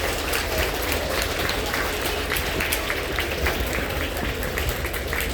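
Crowd of students applauding and cheering for an award recipient, a dense patter of many hands clapping in a school gym's echo.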